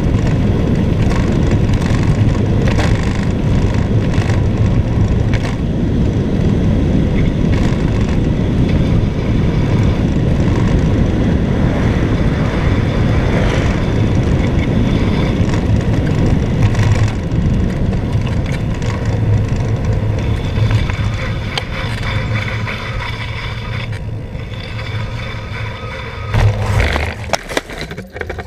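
Steady wind rush on a handlebar-mounted camera with bicycle tyre noise on a wet road while riding. Near the end the rush drops away and a few loud knocks and rattles follow.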